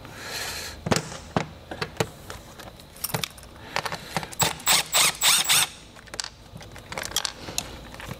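Pliers and plastic tool holders being handled and pressed into a Tool Grid board in a toolbox drawer: a run of sharp clicks and metal clinks, with a quick cluster of them about halfway through.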